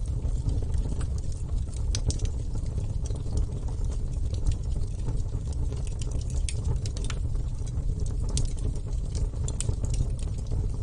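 Bonfire burning: a steady low rumble of flame with scattered sharp crackles and pops throughout.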